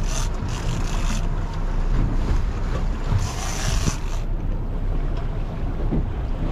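Boat running at sea: a steady low engine rumble with wind on the microphone, and two spells of hiss, one at the start and one about three seconds in.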